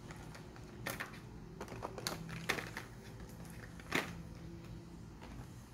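Boxed bars of soap being set down and pushed into place in a clear plastic tray: a handful of light, separate clicks and knocks, the sharpest about two and a half and four seconds in.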